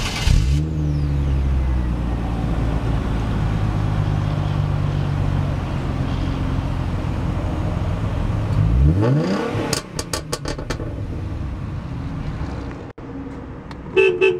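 The 3.8-litre V6 of a 2011 Hyundai Genesis Coupe 3.8 Track idling steadily, heard at its dual exhaust tips. About nine seconds in it is blipped once with a short rising rev, then drops back to a quieter idle.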